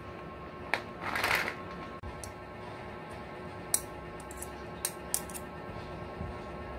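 A plastic vitamin C bottle of tablets shaken once, a short rattle about a second in; then a few light sharp clicks of a plastic spoon and fork knocked together.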